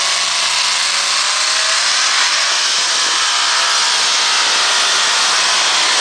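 Pulling tractor's engine running flat out, a steady, loud, high-pitched noise that holds at the same level throughout.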